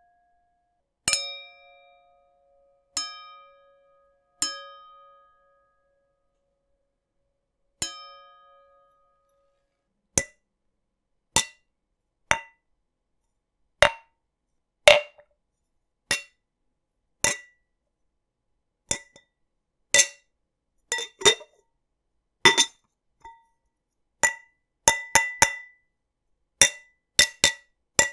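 Glass being struck, ringing with clear tones and echoing. Five ringing dings spread over the first nine seconds, each dying away over a second or more. From about ten seconds in comes a run of shorter, sharper clinks that crowd closer together toward the end.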